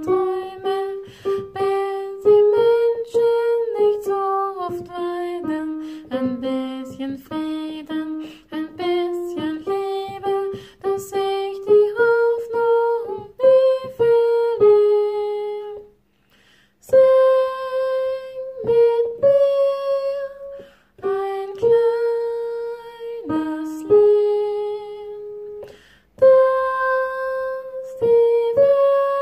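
A single unaccompanied melody line, the soprano part, played note by note in the middle of the treble range, each note starting sharply and held briefly, with a short pause about halfway.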